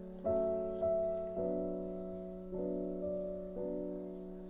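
Slow, gentle piano background music, a new note or chord struck roughly every second and each one dying away.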